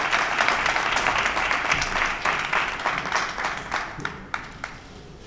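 Audience applauding, which thins out after about three and a half seconds into a few last scattered claps and dies away.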